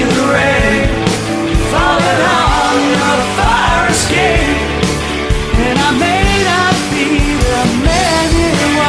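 Rock band playing: drums keeping a steady beat under a full band, with a lead melody line bending up and down in pitch over it.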